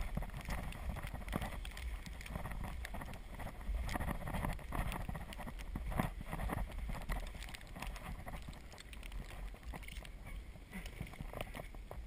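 Azub recumbent trike's tyres crunching and crackling through fresh snow as it is pedalled, a steady noise broken by many irregular small clicks and crunches.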